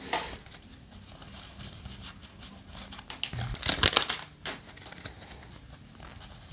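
Yu-Gi-Oh! trading cards being handled: soft rustling and light flicks of card stock, with a cluster of louder rustles about three to four seconds in.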